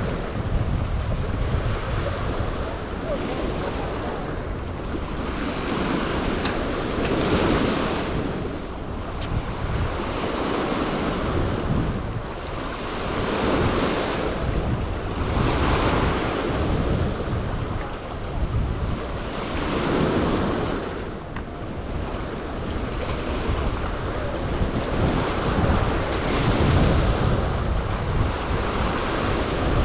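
River water washing onto a rocky cobble shore in surges every few seconds, with wind rumbling on the microphone.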